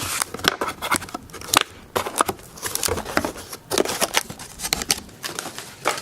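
A new camera's packaging being opened and unpacked by hand: irregular clicks, scrapes and rustles.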